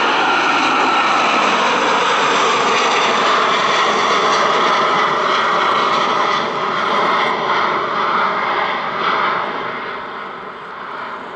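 Thai Airways Boeing 777-200ER's twin jet engines at full power during its climb-out after takeoff: a loud, steady roar that fades over the last few seconds as the airliner climbs away.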